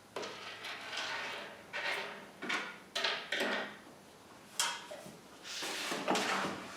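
Metal parts of a portable bandsaw table scraping and sliding against each other in a series of short strokes, with a sharp knock at the end.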